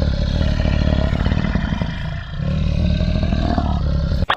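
Polar bear growling: a deep, continuous rumbling growl that cuts off abruptly near the end.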